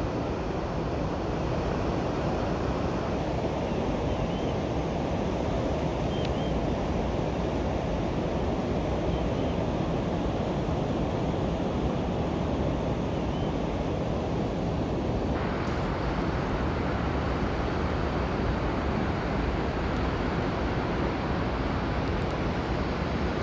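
Steady rushing noise, with a few faint short chirps in the first half.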